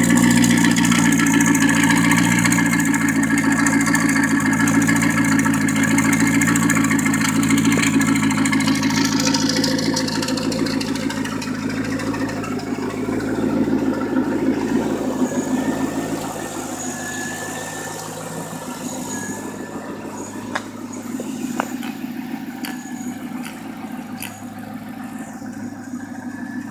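Twin-turbocharged V8 of a 2001 C5 Corvette, with a built motor, turbo cam and STS remote-mount twin turbos, idling steadily. The idle grows somewhat fainter through the second half, with a couple of sharp clicks about three-quarters of the way through.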